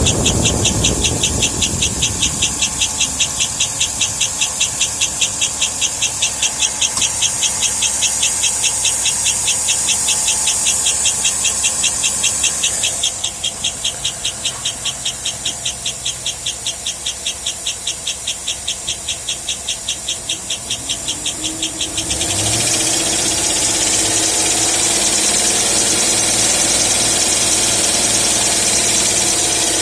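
2007 Cadillac Escalade's engine running with a fast, regular high-pitched chirp, about four a second, that keeps time with engine speed and persists with all the drive belts removed, so it does not come from a belt or belt-driven accessory. About two-thirds of the way in the pitch of the engine rises and the separate chirps give way to a steadier, louder running sound.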